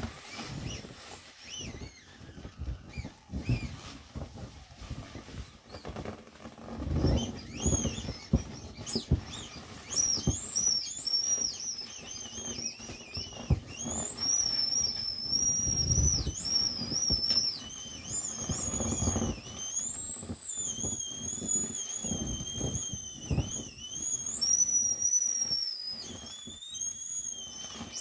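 Air whistling out through the valve of an inflatable vinyl bunny as it is squeezed to deflate it. The high whistle wavers and glides in pitch and begins several seconds in. Under it the vinyl rubs and thumps as it is handled.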